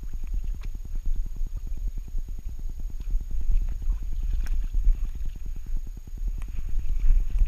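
Muffled low rhythmic thudding, several pulses a second, carried through a wolfdog's body into a camera strapped to its back: the dog's panting and movement, with a few faint clicks.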